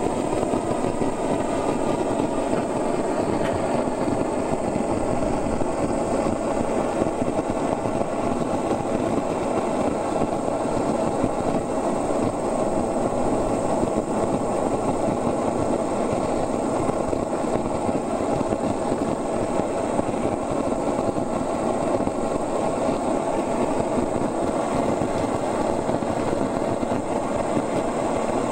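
A steady, even mechanical roar with no clear beat, unchanged throughout.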